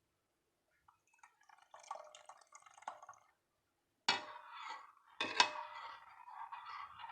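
Liquid dripping and pouring, with light clatter and two sharp clinks about four and five and a half seconds in.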